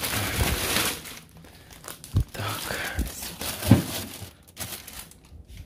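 Plastic carrier bags rustling and crinkling as groceries are pulled out of them. This is followed by a few short knocks as packs are set onto a fridge shelf, the loudest about three and a half seconds in.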